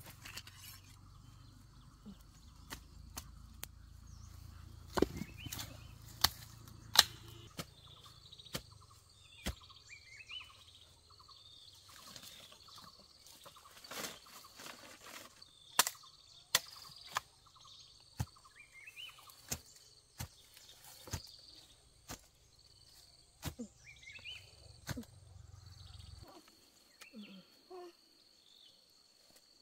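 Sugarcane being cut and handled: sharp, irregular knocks and cracks, a few much louder than the rest, with birds chirping now and then.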